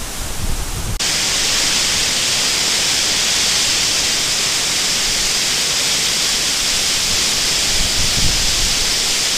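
Wind buffeting the microphone, then about a second in an abrupt change to the steady, loud rush of a waterfall's falling water.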